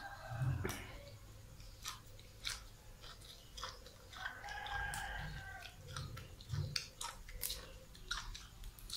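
Close-up chewing and lip-smacking of a person eating with his fingers, with many short wet mouth clicks.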